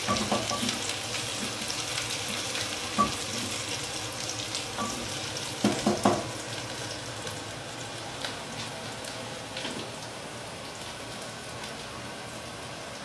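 Food sizzling as it fries in an aluminium pressure cooker on a gas stove, stirred with a wooden spatula that knocks against the pot once about three seconds in and a few times around six seconds in. The sizzle grows quieter in the second half.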